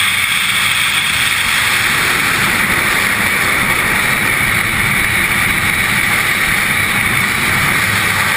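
Loud, steady rush of freefall wind blasting over a skydiver's body-mounted camera microphone.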